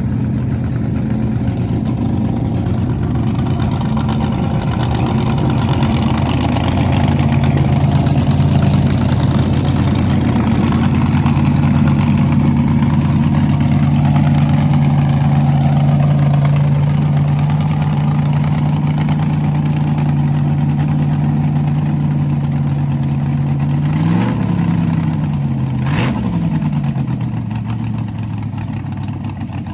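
Car engine idling steadily, then its throttle is blipped twice near the end, the pitch rising and dropping back each time.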